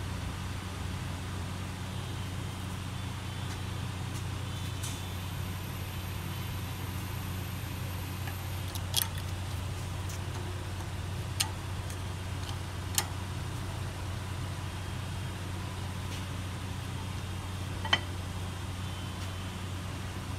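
Steady low hum, with four short, sharp metallic clicks spread through the second half as front brake pads are seated into the caliper bracket.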